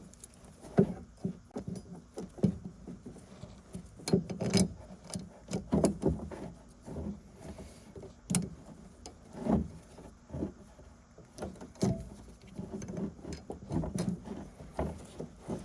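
Irregular metallic clicks and knocks of vice grips being worked on a brake flex-line fitting, with short scrapes as the tool is repositioned and the fitting is turned.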